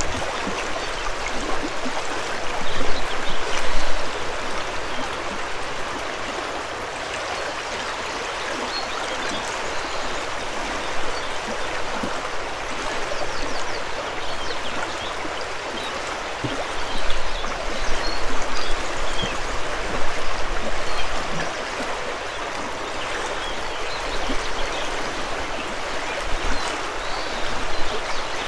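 A river flowing, a steady rush of water that swells a little now and then.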